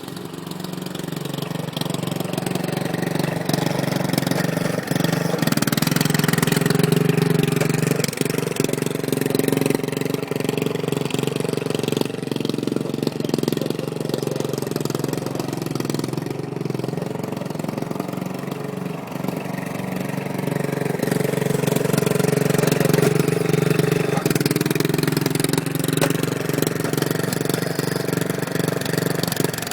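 John Deere lawn mower engine running steadily, swelling louder twice, about a quarter of the way in and again past the middle.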